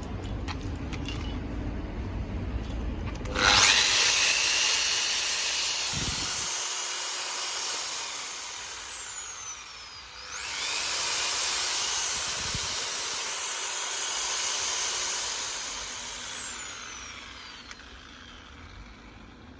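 Makita 8406C diamond core vibration drill run with no load, twice: each time the motor spins up quickly to a high steady whine, holds for about four seconds, then winds down as the trigger is released.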